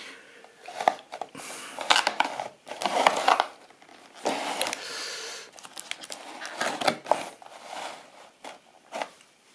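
Stiff clear plastic blister packaging crinkling and crackling as it is handled, in irregular bursts with a few sharp clicks.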